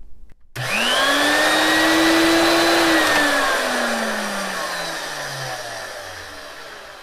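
Vintage Fein ASG 658 electric tapper's 540-watt motor switched on: it spins up with a quickly rising whine, runs steadily for about two seconds, then winds down with a slowly falling whine as it coasts to a stop.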